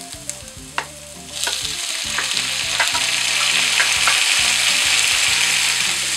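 Diced tomato going into a frying pan of hot oil with browning onion and garlic. After a few light clicks of utensils, the sizzle jumps up sharply about a second and a half in and carries on loud and steady as it is stirred.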